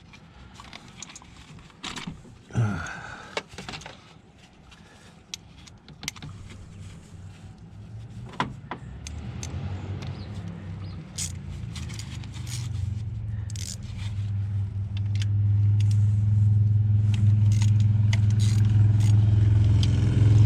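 Metal clinks and scrapes of socket tools and an extension. From about halfway through, a steady low motor drone grows louder and then holds steady.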